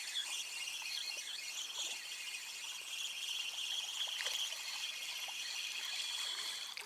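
Insects chirring: a steady, high-pitched continuous buzz with a few faint clicks, cutting off suddenly at the end.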